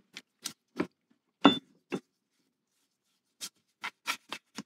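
Scattered clinks and knocks of steel milling-vise parts being handled in a plastic tub of degreaser. The loudest is a metallic clink with a brief ring about one and a half seconds in, and there is a pause of about a second and a half before a few more light knocks near the end.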